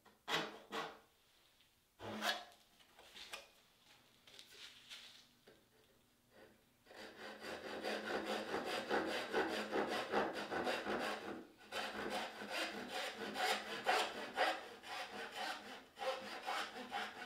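Hand sawing black walnut with a brass-backed backsaw, cutting a dovetail. It starts with a few separate light strokes, then from about seven seconds in runs into quick, steady back-and-forth rasping strokes, with one brief pause, stopping near the end.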